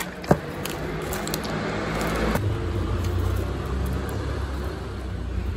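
A vehicle engine running, a low steady hum that gets louder about two and a half seconds in. At the start a snack wrapper rustles, with one sharp click.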